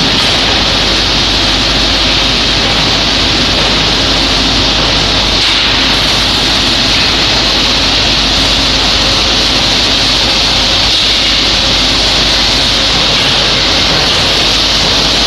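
Hanger-type shot blasting machine running: a loud, steady hiss of abrasive blasting with a low hum underneath.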